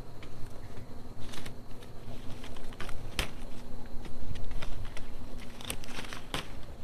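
Leaves and twigs rustling and crackling as koinar (Bauhinia) flowers are plucked by hand from the branches, with a few sharp snaps scattered through.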